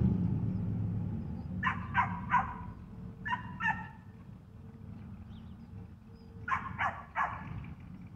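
Vehicle engine noise dies away in the first second, leaving a low rumble. A dog barks in three bursts: three barks, then two, then three more.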